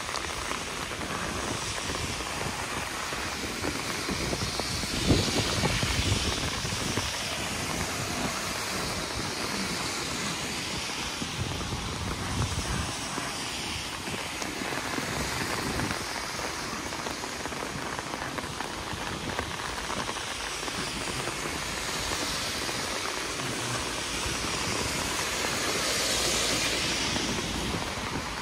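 Steady rain falling on wet paving, with the tyre hiss of cars on the wet road swelling and fading now and then, loudest about five seconds in and near the end. Wind buffets the microphone at times.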